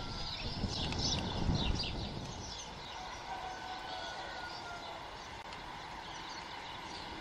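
Outdoor ambience from the stork nest camera's microphone: a few short, high chirps of small birds in the first two seconds over a steady low hiss.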